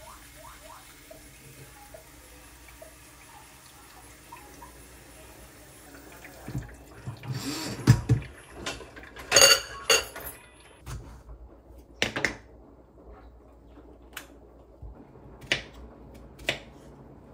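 Kitchen dishes and utensils clattering and clinking as they are moved and put away, with one ringing clink in the middle of the busiest stretch. Then come several separate sharp knocks, ending with a knife cutting through sweet persimmon against a wooden cutting board.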